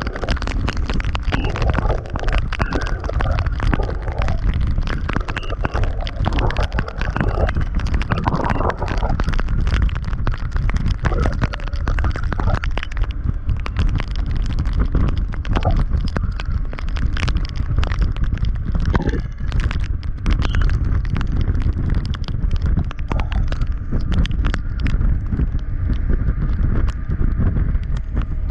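Wind buffeting hard on an action camera's microphone at highway speed, a heavy steady rumble full of constant crackling taps.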